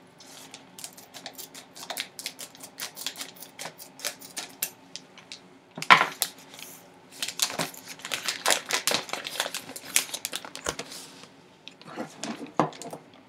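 Hands opening a box and handling its packaging, then a foil pouch: a run of rapid scratchy clicks and rustles, with a sharper knock about six seconds in.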